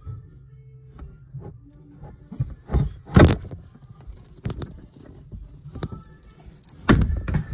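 Irregular knocks and thumps, with two loud ones about three seconds in and near the end, as something bumps against a hard surface or the camera close by.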